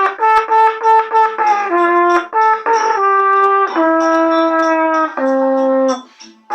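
Trumpet played by a beginner: a slow melody of separate notes, first a run of short notes, then longer held ones, breaking off about six seconds in.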